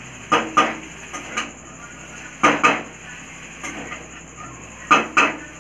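Spatula knocking against a metal kadhai while stir-frying chow mein noodles: three pairs of sharp clacks, about two and a half seconds apart.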